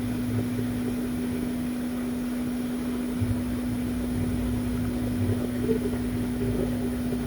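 Small blower fan of a hot air rework station running with a steady hum at one even pitch.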